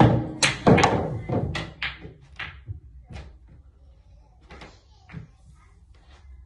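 Pool shot: the cue strikes the cue ball, then a quick run of sharp clacks and knocks as the balls hit each other and the cushions, dying away over about three seconds. Two fainter knocks follow later.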